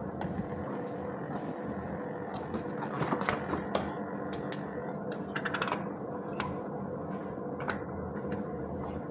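Small battery-powered portable fan running with a steady hum, with clicks and crackles from the fan and its packaging being handled, busiest about three seconds in and again past five seconds.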